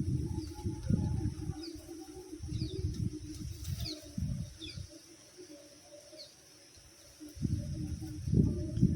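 Small birds giving a handful of short, high, falling chirps over low rumbling noise that comes and goes. The rumble drops away about five seconds in and returns loudest near the end.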